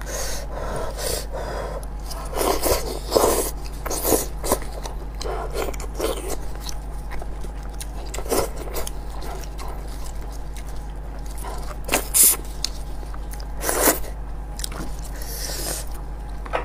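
Close-miked eating of a braised sheep's head: gloved hands tearing the meat off the bone, with irregular wet squelches, crunches and chewing sounds. A few sharper loud cracks come about twelve and fourteen seconds in.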